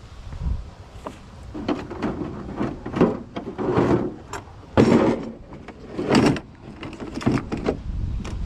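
Junk being handled in a curbside pile: irregular knocks and clatters of plastic and wood as pieces are shifted and a hard plastic tool case is pulled out. The loudest knock comes about five seconds in.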